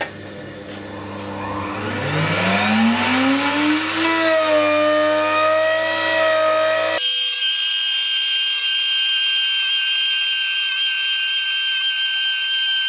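Table-mounted router with a 3/4-inch bit spinning up: its whine rises for about two seconds and then holds a steady pitch at full speed. About seven seconds in, the sound turns abruptly thinner and higher-pitched and runs on steadily.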